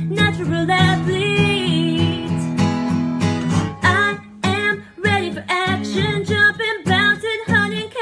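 A woman singing while strumming chords on an acoustic guitar, with one long held note near the middle.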